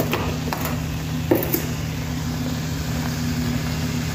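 Steady low mechanical hum, with a few light clicks near the start and a soft knock about a second in.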